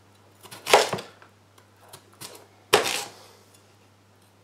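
Kitchen knife cutting down through a peeled potato onto a plastic chopping board: two sharp knocks, about a second in and near three seconds, with lighter taps between.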